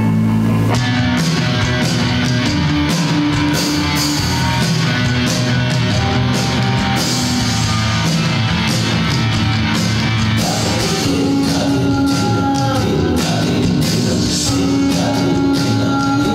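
Music from a dance film's soundtrack, re-recorded from a screening in a hall. A held drone gives way less than a second in to a busier passage with steady percussion and held melodic notes.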